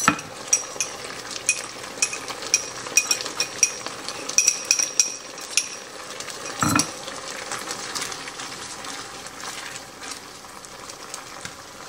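Chicken in honey garlic sauce sizzling in a skillet while a utensil stirs it, clinking sharply against the pan many times in the first half. There is one dull thump a little past the middle, then only the steady sizzle of the thickening sauce.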